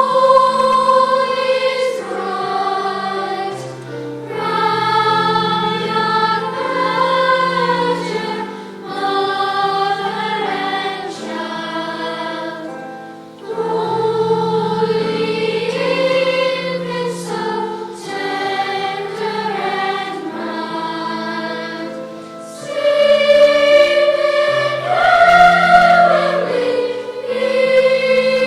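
Youth choir singing in harmony, in sustained phrases of a few seconds with short breaths between, swelling louder near the end.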